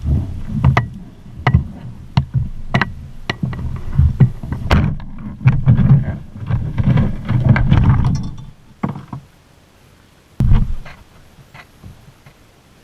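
Kayak hull sounds: a run of sharp knocks about every two-thirds of a second against the plastic hull, with rumbling handling and water noise, then one heavy thump about ten and a half seconds in.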